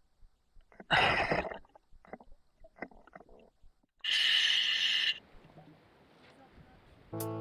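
Scuba diver breathing underwater through an Apeks regulator in an OTS Guardian full face mask. A rough, bubbling exhalation comes about a second in and a longer hissing breath around four seconds, with faint ticks between them. Guitar music starts at the very end.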